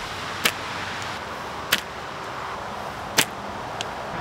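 Three sharp snaps a little over a second apart: shots from a Hornet slingshot fitted with speed shooter rubber tubes, firing clay balls.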